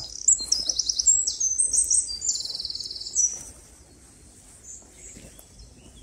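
A songbird sings a fast run of high, sharp notes and trills for about three seconds.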